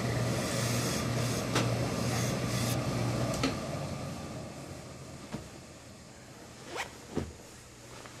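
Tailor's steam iron pressing a wool trouser panel flat: a steady hiss with a low hum that stops about three seconds in. After that comes quieter fabric handling, with a few light taps and clicks.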